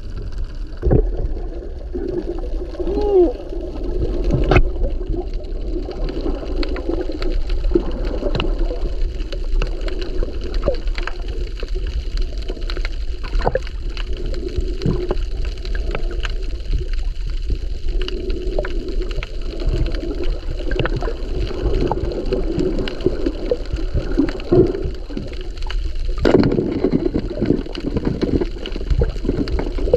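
Underwater sound picked up by a submerged camera: muffled water movement and gurgling, with scattered sharp clicks throughout and a louder knock a few seconds before the end.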